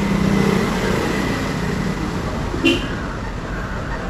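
Steady outdoor background rumble and hiss, with one short sharp click near the middle.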